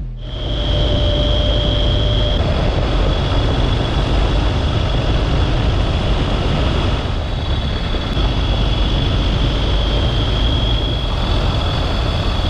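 Motorcycle riding along a gravel road, heard from an on-bike camera: a steady mix of engine, tyre and wind noise with a thin, steady high whine.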